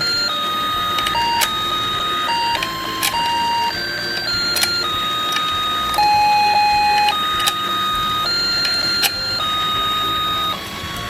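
Battery-powered toy fishing game playing its electronic beeping tune, one plain note at a time in a simple melody, with sharp clicks in between.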